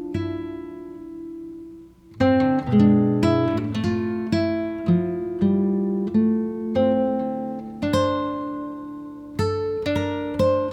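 Acoustic guitar music: picked notes and chords ringing out, with a brief pause about two seconds in.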